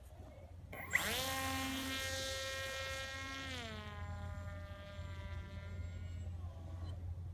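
Electric motor and propeller of an RVJET flying-wing RC plane whining in flight, a high buzz that starts suddenly about a second in. Its pitch slides down twice, then it fades.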